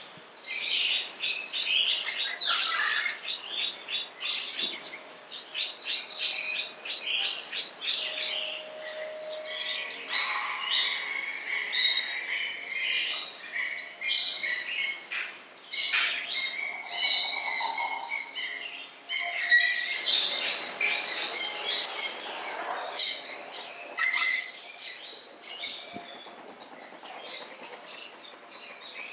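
Many birds chirping and calling over one another, a dense chorus of short calls that keeps up with no break.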